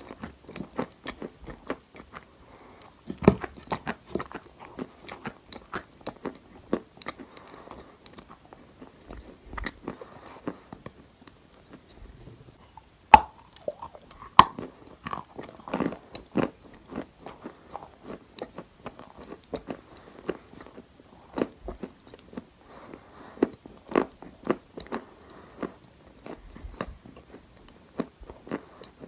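A person biting and chewing dry grey clay: a string of crisp crunches with short pauses between bites. The sharpest cracks come a few seconds in and twice near the middle.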